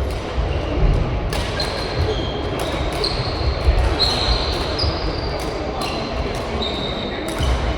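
Badminton rally: athletic shoes squeak on the court floor again and again in short high squeaks, with sharp racket hits on the shuttlecock among them.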